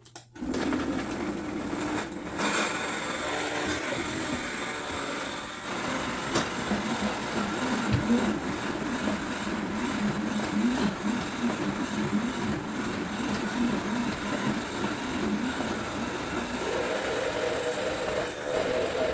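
Countertop blender switched on and running at high speed, pureeing raw potatoes, onion and garlic into a pulp. It starts abruptly about half a second in, then runs steadily, and its pitch rises about sixteen seconds in.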